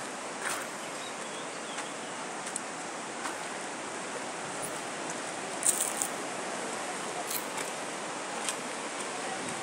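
Steady rush of river water, an even noise throughout, with a few faint clicks, the sharpest a little past halfway.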